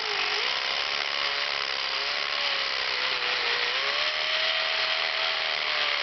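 DeWalt DWD520 hammer drill hammering a 1/2-inch bit into aggregate concrete: a steady rattling drill noise over a motor whine whose pitch wavers slightly as the load changes.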